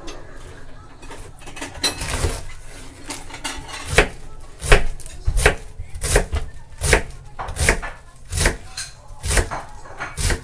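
Kitchen knife shredding a half cabbage on a plastic cutting board: from about four seconds in, each slicing stroke ends in a sharp knock of the blade on the board, about one and a half strokes a second.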